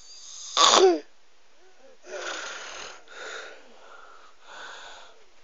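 Wheezy snoring: three raspy breaths over about three seconds, with a thin whistle in them. They come after a short, loud squeaky sound near the start that falls in pitch.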